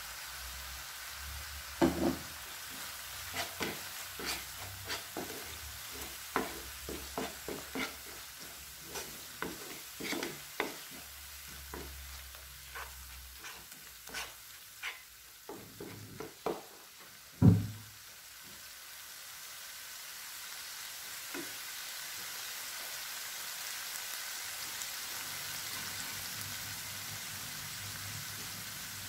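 Wooden spoon stirring a tomato, garlic and spice sauce frying in oil in a non-stick pan, knocking against the pan many times, loudest about seventeen seconds in. After that the stirring stops and the sauce sizzles steadily, growing a little louder.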